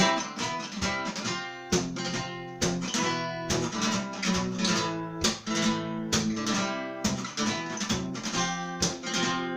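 Acoustic guitar strummed in a steady rhythm, an instrumental passage between sung verses.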